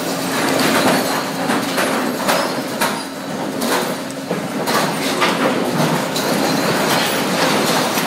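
Sawmill machinery running with a continuous loud rattle and frequent clanks and knocks, with a faint steady hum under it in the first few seconds.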